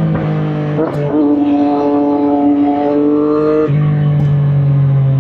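Triumph motorcycle engine and exhaust held at steady high revs, stepping up in pitch about a second in and climbing slightly. It then drops to a lower steady note about three and a half seconds in.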